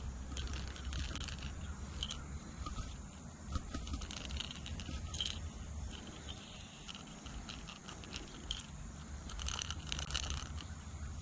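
Small clicks and scrapes of fishing pliers and tackle being handled close to the microphone, with a busier run of clicks near the end, over a low steady rumble.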